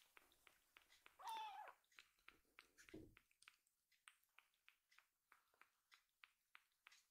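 A kitten suckling milk from a small nursing bottle: faint, rhythmic wet clicks about three times a second. A short kitten meow sounds about a second in.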